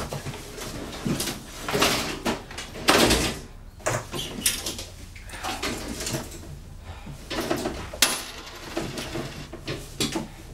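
Irregular knocking and clattering of household objects, with a loud rushing burst about three seconds in and a sharp click about eight seconds in.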